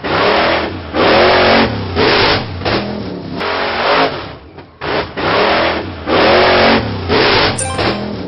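Cartoon monster truck engine sound effect, revving in a string of loud bursts that rise and fall in pitch, with short breaks between them.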